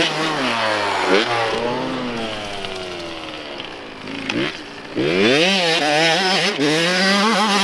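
Small dirt bike engine: the revs fall away for about four seconds as the throttle is rolled off, then climb sharply about five seconds in and hold high as the bike accelerates.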